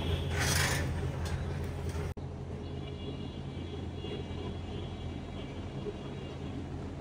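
Steady low mechanical hum, with a louder rush of hiss over the first two seconds that cuts off abruptly.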